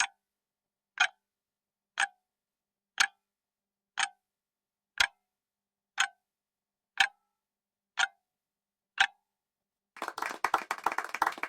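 Quiz countdown timer sound effect: ten clock ticks, one a second. About ten seconds in, a short burst of clapping follows.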